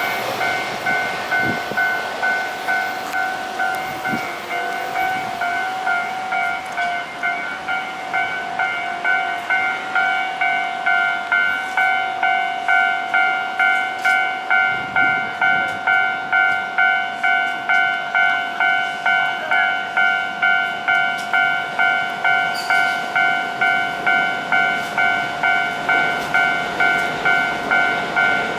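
Japanese railway level-crossing warning bell ringing: a repeating electronic two-tone clang in a steady, even rhythm, with faint rail and city noise beneath.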